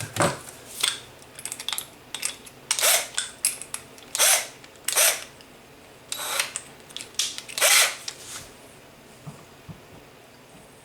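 Irregular clicks, clinks and short rattling scrapes of drill bits and tools being handled while the right bit is picked out and readied for the drill.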